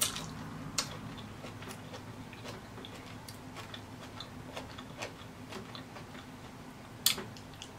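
Close-miked chewing of soft lobster meat: small wet mouth clicks and lip smacks at an irregular pace, with a sharper click about a second in and another near the end, over a faint steady low hum.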